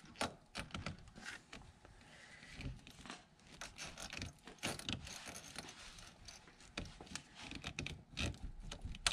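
Faint metal clicks, knocks and scrapes of an air-conditioning refrigerant line being pushed onto its spring-lock coupling with a T-handle tool, ending in a sharper click near the end as the coupling's spring catches.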